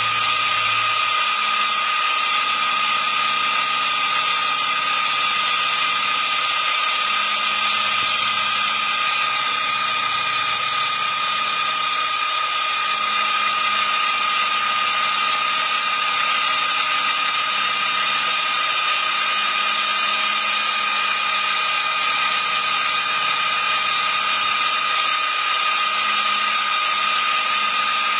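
Benchtop mill-drill spindle running while its end mill cuts a pocket in a metal block, a steady high whine over a continuous cutting hiss.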